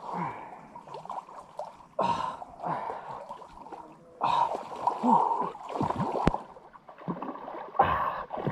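Water splashing and sloshing in irregular bursts as a person swims through a muddy pond, with short breaths between them.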